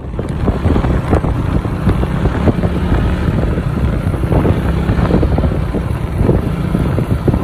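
Wind buffeting the microphone of a moving vehicle, a loud gusty rush over the steady rumble of the vehicle and road.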